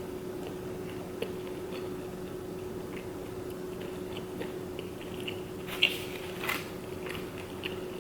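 A person chewing food close to the microphone: small crunches and mouth clicks, a couple of louder ones past the middle, over a faint steady hum.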